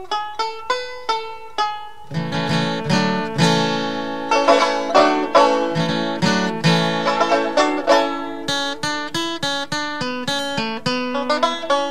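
Instrumental music on plucked strings: quick picked notes, a thin single line at first, fuller from about two seconds in when lower notes join.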